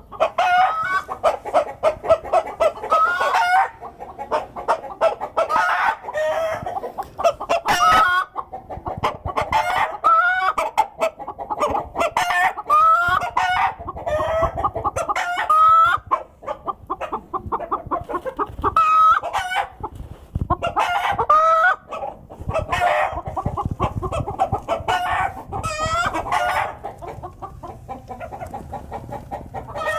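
Hens cackling: strings of rapid clucks that rise into drawn-out, higher calls, repeated over and over with only short pauses. This is the egg-laying cackle that hens raise when one has just laid.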